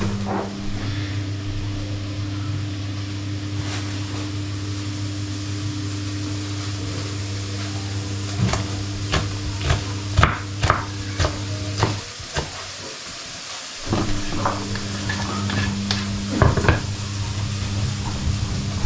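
Food being stirred in a cooking pot over a sizzle, with a run of quick spoon knocks against the pot about halfway through and again a little later, over a steady low hum.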